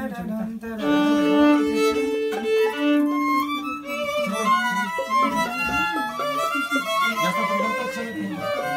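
Mariachi band playing: violins carry the melody over strummed guitars. It opens with long held violin notes, then moves into a quicker, shifting tune.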